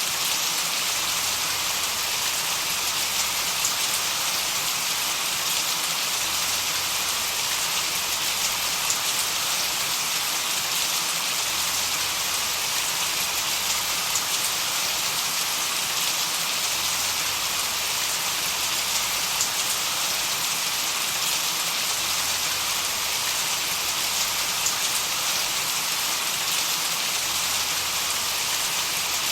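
Steady rain: an even hiss of rain falling on a surface, unchanging in level, heavy in the upper range and dotted with fine drop ticks.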